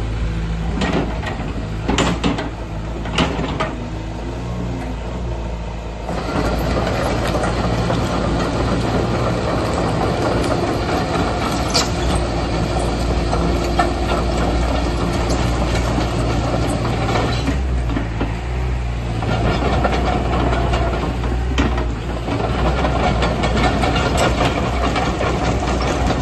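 2016 Hyundai HX140 tracked excavator: the diesel engine runs while the machine travels on steel tracks, the track links clanking and rattling. There are a few sharp clanks in the first few seconds, then steady track clatter from about six seconds in that eases for a few seconds past the middle and picks up again.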